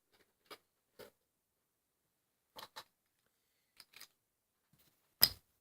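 Faint, scattered clicks and knocks of objects being handled in a small room, with one louder knock near the end.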